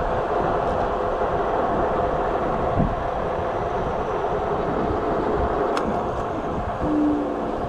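Juiced Scrambler electric bike being ridden: steady wind and tyre rumble on the microphone with a faint steady motor whine, and a short squeak near the end.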